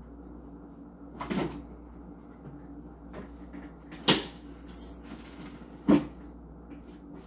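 Cardboard shipping box being opened by hand, its taped flaps pulled apart, with three sharp cardboard knocks spread through it over a steady low hum.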